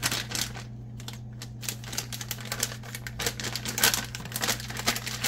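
Plastic shredded-cheese bag crinkling in quick, irregular rustles and clicks as a hand rummages in it and shakes out the cheese, with a louder crackle near the end, over a low steady hum.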